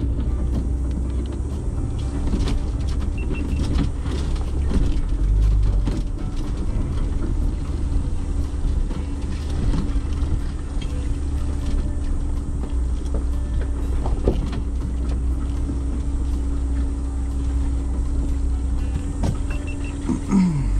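Ford Bronco driving slowly over a rough dirt trail, heard from inside the cabin: a steady low rumble of engine and tyres, with scattered knocks and rattles as the suspension goes over ruts and rocks.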